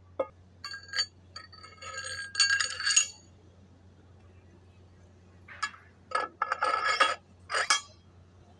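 Metal clinking and clanking in several short bursts, with ringing tones, as steel parts or tools knock together. A steady low hum runs underneath.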